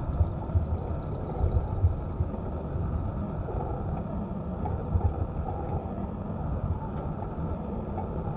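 Small rail locomotive's engine running as it pulls a passenger car slowly past, a steady low rumble with irregular low thumps that are stronger in the first couple of seconds.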